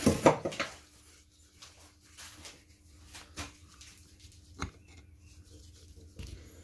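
A sharp knock with a brief clatter at the start, then faint scattered clicks and scrapes of a screwdriver turning the idle adjustment screw in a Bing moped carburettor body.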